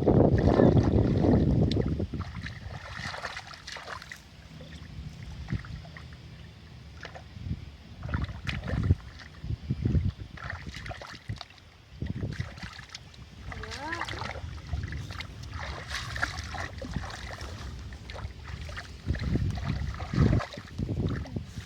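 Water sloshing and splashing with scattered knocks and clicks, loudest in the first two seconds; a short rising call is heard about two-thirds of the way through.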